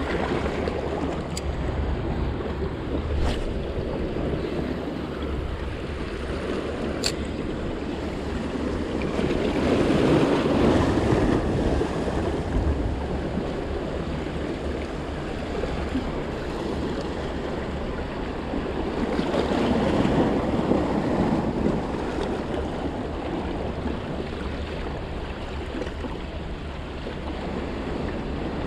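Sea waves washing against a rocky shore, with wind on the microphone; the wash swells twice, about ten and twenty seconds in. A few sharp clicks in the first seven seconds.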